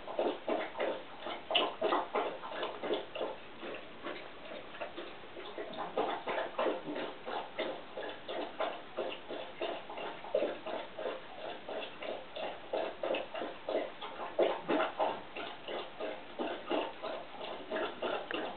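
A dog lapping water, a steady run of wet laps at about three to four a second.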